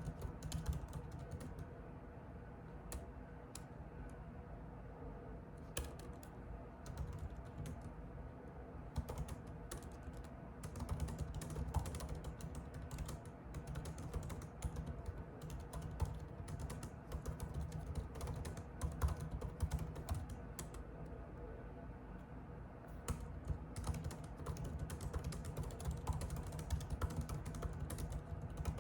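Computer keyboard typing: quick runs of key clicks, busier in stretches and sparser in others, over a low steady hum.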